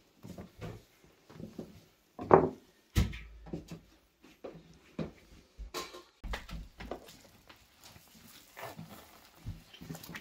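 A boning knife and hands working slabs of pork back fat and skin on a wooden cutting board: scattered knocks, scrapes and slaps of meat on wood. A louder short sound comes about two seconds in, then a knock on the board.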